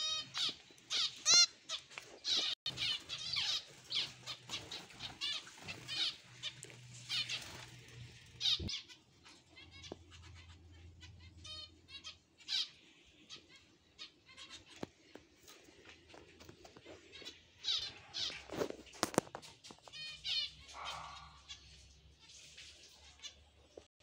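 Small aviary finches chirping: quick high calls in rapid runs for the first eight seconds or so, then sparse, then coming thick again in the last few seconds.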